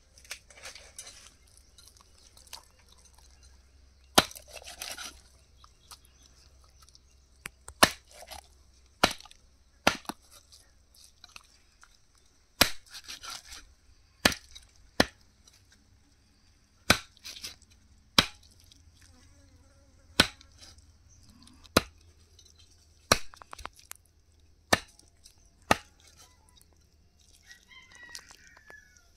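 Chopping with a knife on a board: a dozen or so sharp strikes at an irregular pace, one every one to two seconds.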